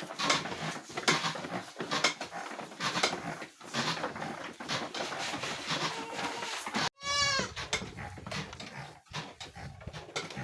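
Young goats bleating, with one clear bleat about seven seconds in and a fainter one just before it, over repeated short hissing bursts.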